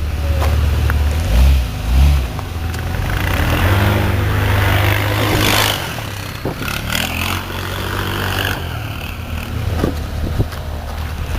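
2001 Jeep Grand Cherokee's engine running and revving up and down while crawling off-road, with rough noise from the tyres and body over it. Two short low thumps come about one and a half and two seconds in.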